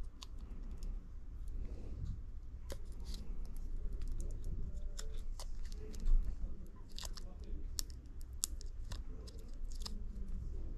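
Small clicks, ticks and scrapes of hand tools and phone parts handled on a repair bench, with one louder low thump about six seconds in.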